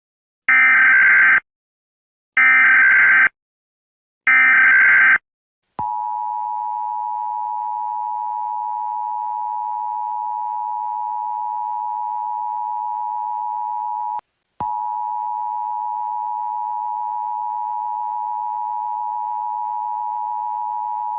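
Emergency Alert System tones. First, three short bursts of the SAME digital header, a buzzy warbling data burst each about a second long. Then, from about six seconds in, the steady two-tone EAS attention signal, which breaks off briefly about fourteen seconds in and then resumes.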